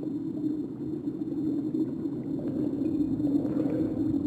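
A low, steady rumbling drone that grows slightly louder.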